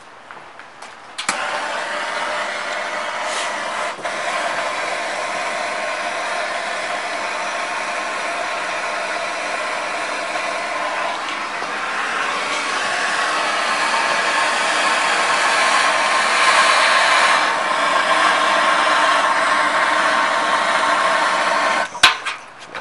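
Hand-held gas torch burning with a steady hiss as it heats copper for soldering. It starts suddenly about a second in, gets louder in the second half and cuts off abruptly near the end.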